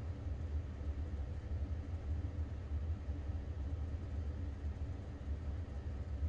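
Steady low rumble with a faint hum.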